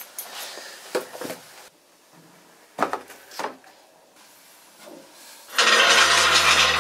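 Soft rubbing and a few sharp knocks as objects, among them a basketball, are handled. About five and a half seconds in, a loud, dense wash of noise breaks in with deep bass notes under it as the soundtrack music begins.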